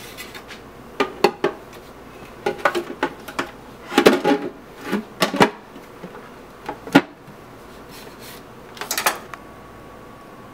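Clear plastic parts of a Hamilton Beach Big Mouth juice extractor being handled and fitted together: an irregular series of plastic clicks, knocks and clatters, the loudest clusters about four and five seconds in.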